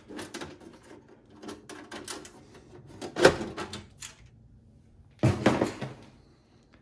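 Side panel of a Dell Inspiron 3880 desktop case being unfastened and slid off: a string of clicks and knocks, the loudest about three seconds in, then a longer scraping burst about five seconds in.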